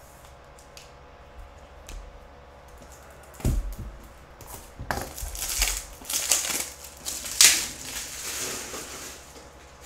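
Plastic card holders and an Ultra Pro plastic box being handled: a few small clicks, a knock about three and a half seconds in, then several seconds of crinkling and rustling plastic with clicks.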